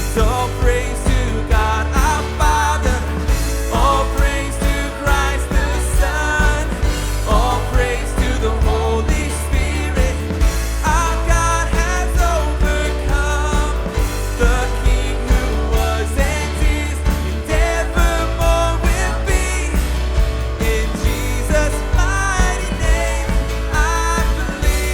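Live worship band playing a full-band passage of a contemporary worship song: drums keeping a steady beat under a bass line that steps between notes, with synth, electric guitar and piano filling above.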